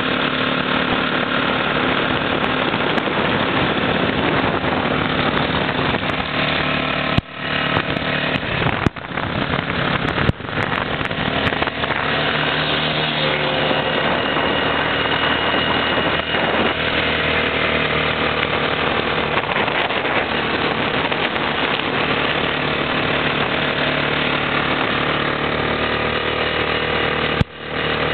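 ATV (quad bike) engine running steadily under way, its pitch drifting up and down a little, with a few brief drops in the sound.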